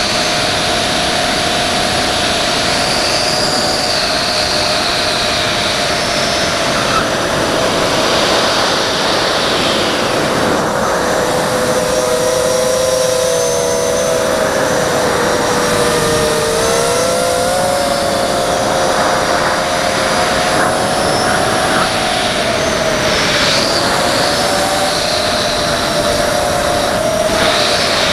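Thorax hexacopter's six Multistar Elite 2204 2300KV brushless motors spinning Gemfan 5030 three-blade props in flight. They make a buzzing whine of several close pitches that waver, dip and rise again as the throttle changes. Under it runs a steady rushing hiss of air.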